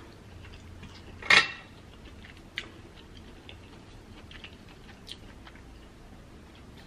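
A wooden spoon and fingers working in a glass baking dish of seafood in thick alfredo sauce: one sharp knock about a second in, then a few faint clicks and soft wet sounds as a sauce-coated shrimp is lifted out.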